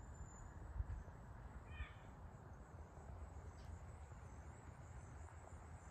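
Faint outdoor ambience: a steady low rumble on the microphone, a soft bump about a second in, and a brief bird chirp about two seconds in.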